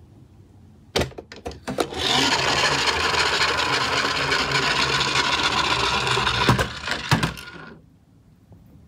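Toy garbage truck set down on a plywood ramp with a few clicks, then its plastic wheels rolling down the wood for about five seconds as a steady, loud rolling rattle. A couple of knocks come near the end as it comes to a stop.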